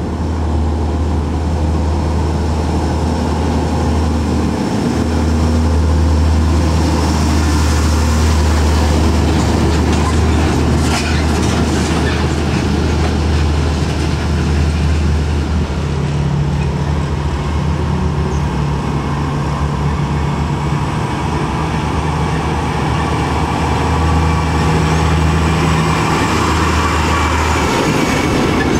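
Heavy diesel tractor-trailer trucks running past at low speed with loaded semi-trailers: a steady low engine drone, with a brief rattle about eleven seconds in.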